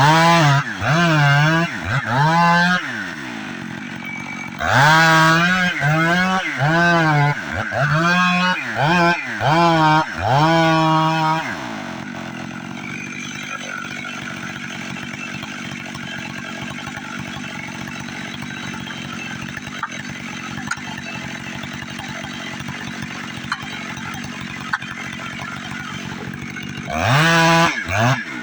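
Two-stroke chainsaw revved again and again in short throttle bursts, its pitch rising and falling with each one, then idling steadily for about fifteen seconds before the revving bursts start again near the end.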